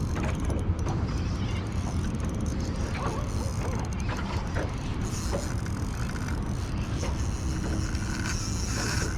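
Daiwa spinning reel being worked, its gears and mechanism clicking, over a steady low background rumble.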